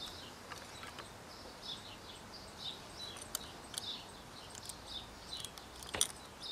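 Small birds chirping over and over, with a few light metallic clicks as the brake pad cover plate is fitted onto the motorcycle's front caliper; the sharpest click comes near the end.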